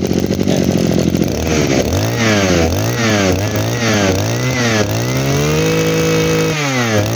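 Echo brush cutter's small two-stroke engine idling, then revved in about four quick throttle blips, held at high revs for about a second, dropped and revved again. It runs cleanly and sounds very good.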